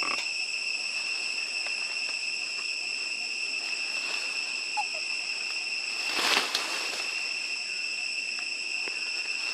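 A steady, high-pitched chorus of insects droning without a break. About six seconds in there is a brief rush of noise, the loudest moment.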